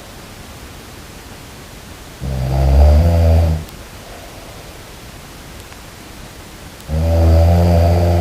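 Person snoring: two long, deep snores, the first about two seconds in and the second near the end, each lasting about a second and a half. A steady hiss fills the gaps between them.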